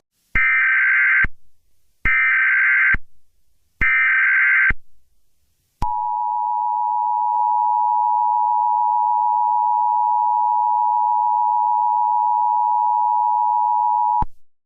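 Emergency Alert System tones. First come three separate one-second bursts of the SAME digital header, a raspy two-pitch data screech, then the steady two-tone EAS attention signal, held for about eight seconds before it cuts off sharply. Together they announce an incoming emergency warning broadcast.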